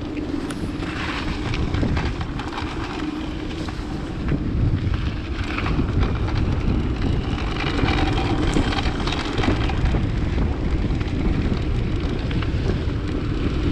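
Wind buffeting the microphone over the rumble of a mountain bike rolling fast down a dirt flow trail, growing louder about four seconds in.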